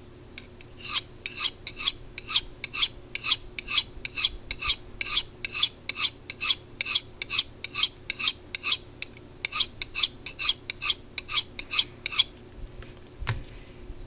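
A 440 stainless steel knife blade drawn in quick freehand strokes along a fine-grit ceramic sharpening rod: a run of high-pitched scrapes, about two to three a second, with a brief pause, stopping about twelve seconds in. A single knock follows shortly after.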